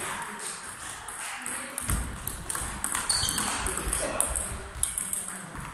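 Table tennis ball clicking repeatedly off bat and table in a fast practice rally, with some low thuds of footwork.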